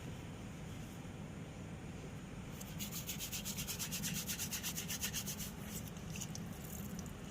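Rapid back-and-forth rubbing or scrubbing by hand, about ten scratchy strokes a second, lasting roughly three seconds from a little under three seconds in, over a steady low hum.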